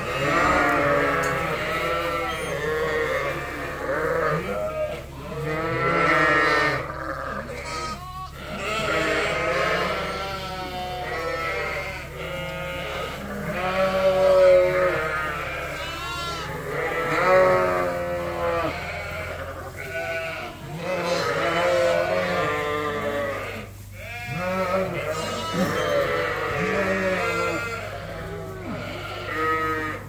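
A flock of ewes and lambs bleating over one another, call after call with hardly a break.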